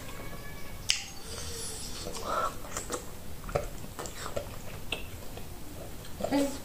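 Wet mouth sounds of eating with the fingers: lip smacks and finger sucking with scattered sharp clicks, the loudest about a second in.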